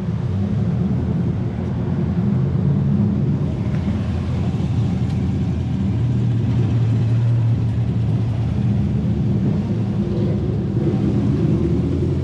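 A car engine running steadily, a low rumble.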